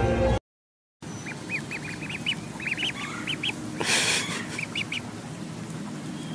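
Music cuts off about half a second in. Then ducklings peep: a quick run of short, high cheeps, several a second, with a brief rush of noise about four seconds in.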